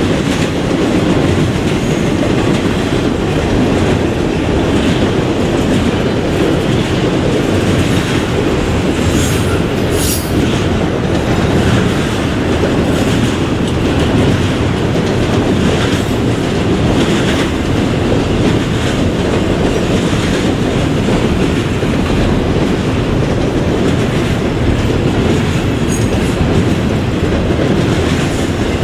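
Double-stack intermodal freight cars rolling past close by: a steady loud rumble of steel wheels on rail with a clickety-clack over the rail joints, and a brief high wheel squeal about ten seconds in.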